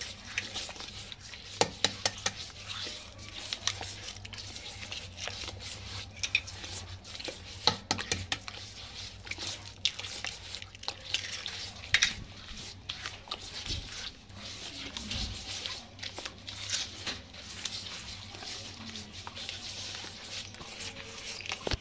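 A bare hand working eggs into a soft butter-and-sugar batter in a bowl: wet squelching and swishing, with frequent sharp clicks and knocks of hand and batter against the bowl.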